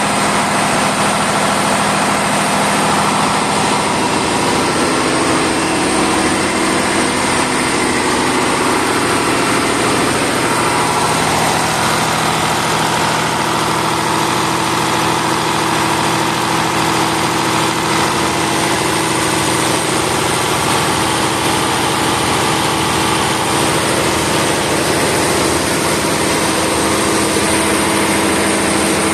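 Large stationary diesel engine of a fire-water pump set, running steadily at a constant speed.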